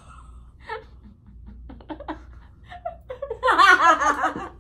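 Two young women laughing: quiet, breathy giggles at first, then much louder laughter from about three seconds in.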